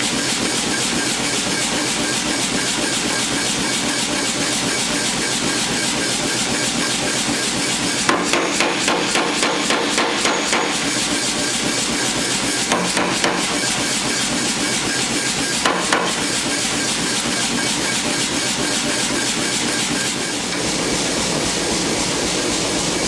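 Hammer blows on hot mild steel during forging: a quick run of about ten strikes at roughly four a second, then a few more, and two more later, all over a steady loud noise.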